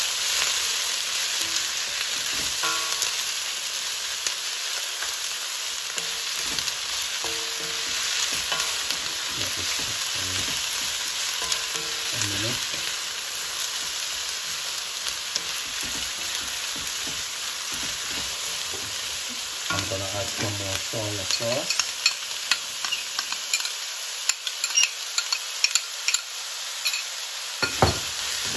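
Julienned carrots, spring onions, green beans and peppers sizzling in hot oil in a stainless steel wok as they are stir-fried, with a steady hiss. Spatula scrapes and clicks against the wok, more frequent in the last several seconds.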